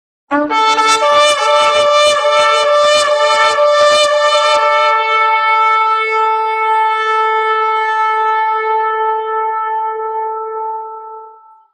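Shofar blown: a rapid string of about a dozen short blasts, then one long held blast that fades away near the end.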